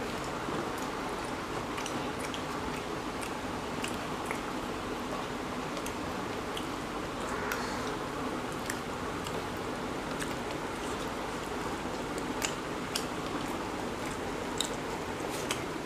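Two people chewing and eating rice and chicken curry with their fingers: scattered wet mouth clicks and smacks over steady background noise, with a few louder smacks in the second half.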